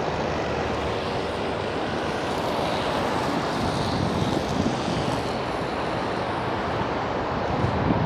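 Steady noise of road traffic passing, with no single vehicle standing out.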